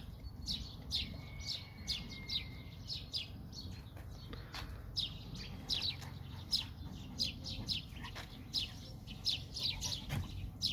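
Small birds chirping, short falling chirps repeating about twice a second, over a low steady rumble.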